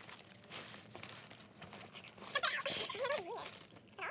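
Faint rustling and light clicks of shrink-wrapped albums being lifted out of a fabric tote bag. About two and a half seconds in comes a short, high, wavering vocal sound from a person, an excited squeal-like 'ooh', and another brief one near the end.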